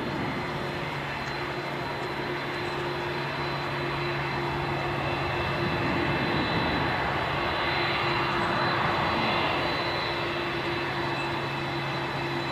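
Jet engines of a Boeing VC-25A (Air Force One 747) running on the runway: a steady high whine over broad jet noise, swelling slightly midway.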